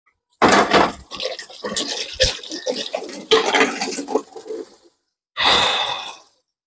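A spatula stirring and scraping food in a metal cooking pan, with clattering knocks, in uneven bursts and a short gap before one last burst near the end.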